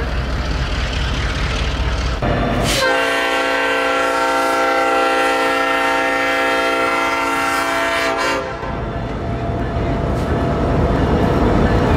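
A Norfolk Southern AC44C6M diesel locomotive's air horn sounds one long, steady multi-note blast of about six seconds, starting about three seconds in, over the rumble of the locomotives. After the horn stops, the passing train's engine and wheel noise carries on.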